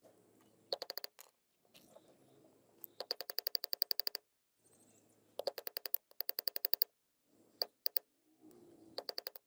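Small hammer tapping a steel pin set in a rusty iron gun part, peening its head over like a rivet: quick runs of light, ringing metal-on-metal strikes, about ten a second. There are about six runs, the longest just over a second, with short gaps of handling noise between them.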